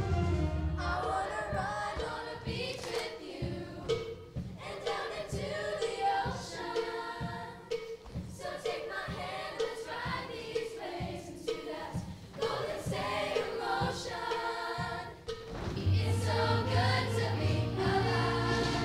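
Middle-school show choir singing an upbeat number together over instrumental accompaniment with a steady beat; a heavier bass line comes in near the end.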